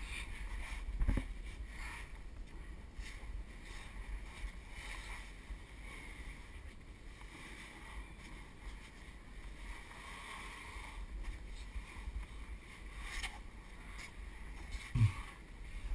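Clothing and gear rubbing and scraping against sandstone walls while someone squeezes through a narrow slot canyon, over a low rumble of camera handling. There is a bump about a second in and another near the end.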